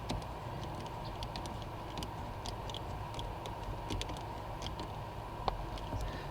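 Light, irregular clicks and ticks from hand work on rubber heater hoses and their clamps at a brass tee fitting, over a steady faint hum.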